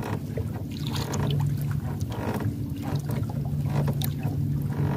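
Water splashing and dripping as a wet gillnet is hauled hand over hand into a wooden boat, in short irregular splashes, over a steady low hum that drops out briefly a few times.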